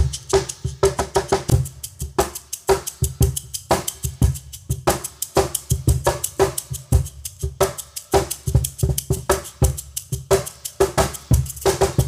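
LP Americana Series cajón fitted with wire snares, played by hand in a steady groove of deep bass tones and sharp slaps, with a wooden Meinl shaker shaken along with it. The recording changes from a Shure SM57 dynamic microphone to a Tascam TM-50C condenser microphone partway through.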